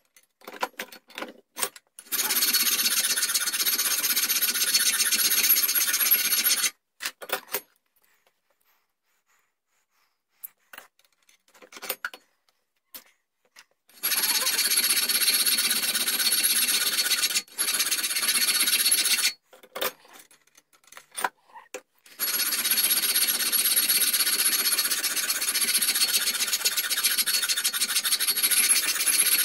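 Hand file rasping on a metal shaft clamped in a bench vise: three long spells of filing, starting about 2 s in, near the middle and about two-thirds of the way through, with short clicks and taps from handling the piece in the pauses. The shaft is being filed round and down toward about 12.5 mm.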